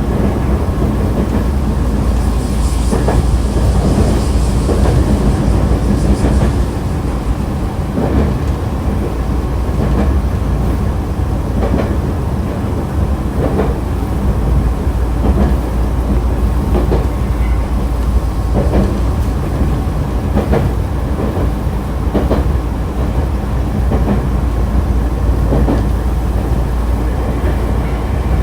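Nankai 2000-series electric train set 2036F running between stations, heard from inside the car: a steady rumble of wheels and running gear with rail-joint clicks every couple of seconds. A hiss rises over it for a few seconds near the start.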